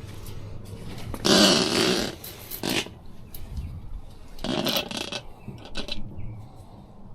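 Rough scraping noises: a loud burst about a second in, a short one soon after, and another about four and a half seconds in.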